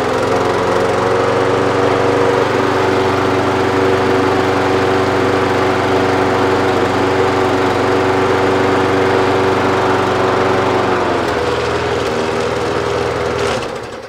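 Briggs & Stratton single-cylinder four-stroke engine on a petrol walk-behind lawn mower running steadily, now going again after a winter left out unused. About eleven seconds in it drops to a lower, slower note, then cuts out just before the end.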